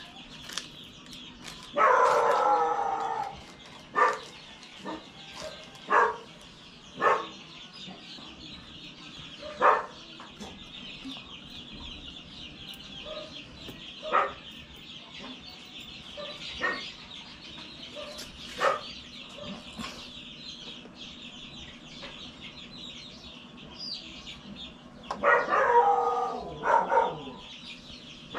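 A rooster crowing twice, once about two seconds in and again near the end, over a steady high hiss. Short sharp taps sound at intervals between the crows.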